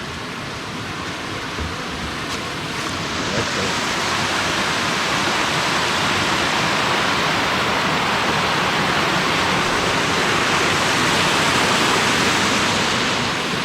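Small waterfall rushing steadily, growing louder through the first half.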